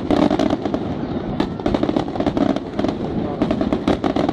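Aerial firework shells bursting in quick succession, a dense, unbroken run of sharp bangs with several reports every second.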